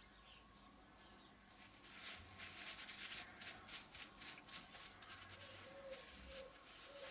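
Paper towel rubbing and rustling against a motorcycle's tapered roller steering-head bearing as the old grease is wiped out, with light metallic clicks from the bearing. The sound is busiest from about two to five seconds in.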